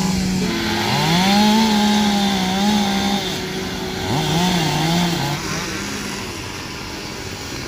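Chainsaws running during speed carving: one holds a steady pitch while another revs up and down as it cuts.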